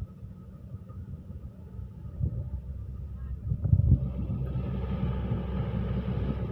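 Excavator's diesel engine running with a low rumble, growing louder about four seconds in as it works harder.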